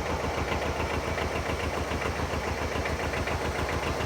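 Farm tractor engine running steadily with an even, fast pulse.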